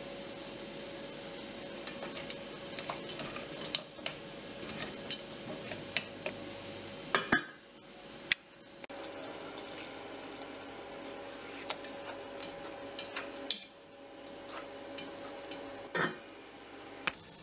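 Braised pumpkin and minced meat sizzling in a pot, with small utensil clinks against the pot as it is stirred. A metal lid knocks onto the pot about seven seconds in and clanks again as it is lifted near the end.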